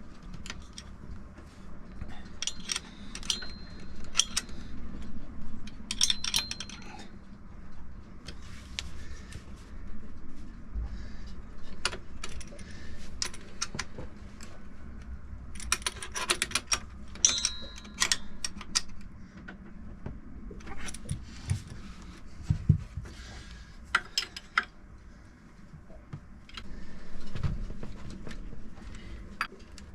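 Metal hand tools and engine fittings clinking and rattling in irregular bursts, a few with a short ringing note, plus occasional dull thumps, as the alternator is refitted and its belt tensioned.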